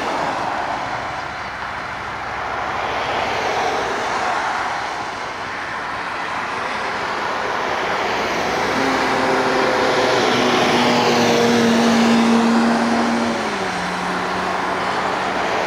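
A loud engine roar from a vehicle or aircraft passing by. It swells to a peak, then its engine tone drops in pitch about thirteen seconds in as the source goes past.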